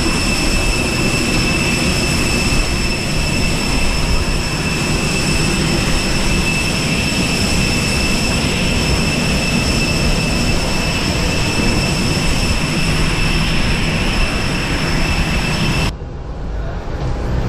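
Airbus A320neo's steady rushing cabin noise with a high steady whine over it, breaking off abruptly near the end.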